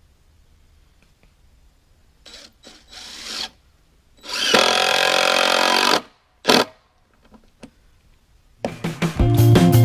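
Cordless screw gun driving a screw into wood: a few short spurts, then one steady run of nearly two seconds and a last short burst. Rock guitar music starts near the end.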